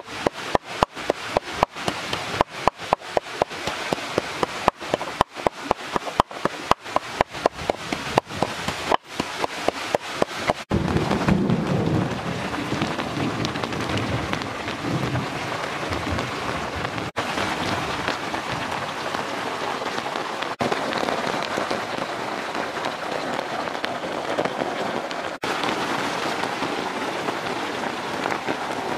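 A pestle pounding salt and chili in a mortar, in quick even strikes about three a second. About ten seconds in the pounding stops and a steady rushing noise takes over.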